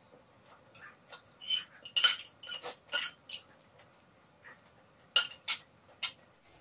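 Metal spoon clinking and scraping against a large metal serving platter, in two clusters of short clinks: one about one and a half to three seconds in, another about five seconds in.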